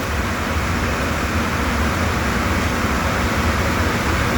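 Steady drone of running shop machinery: a constant low hum under an even rushing noise, with no separate knocks or events.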